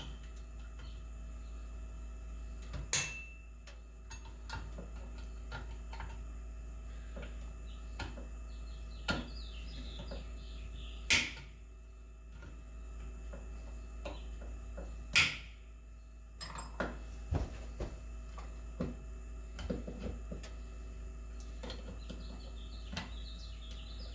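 Needle-nose pliers working at a small spring retainer clip in a White Rodgers zone valve's shaft seal bore: light metal scraping and ticking, broken by three loud sharp clicks spread apart as the stubborn clip fights the pliers. A steady low hum runs underneath.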